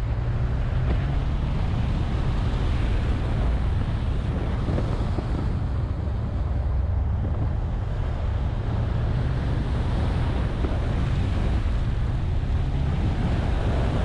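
Subaru WRX being driven on a snow and ice course: wind buffeting the microphone over a steady low rumble of engine and tyres.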